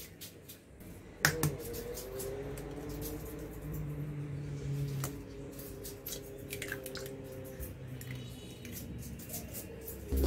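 An egg tapped sharply on the rim of a glass bowl and cracked open, followed by small clicks and squelches as the shell is pulled apart and the egg drops in.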